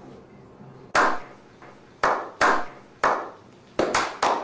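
A small group's slow clap: single hand claps about a second apart, coming faster and closer together near the end.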